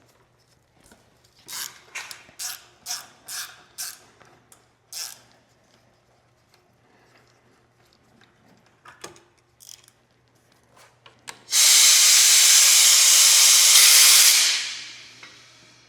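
A ratchet wrench worked in a run of about seven quick strokes on a fastener, followed by a few light clicks. Near the end comes a loud, steady spray hiss about three seconds long that starts suddenly and then tapers off.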